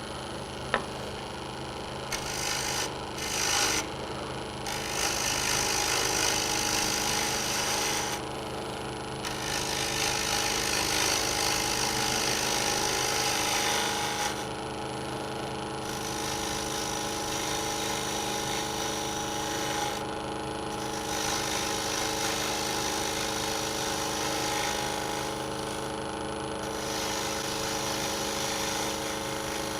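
Wood lathe running with a steady hum while a turning gouge cuts the face of a spinning maple lid. The cutting noise comes in passes of a few seconds with short breaks between them.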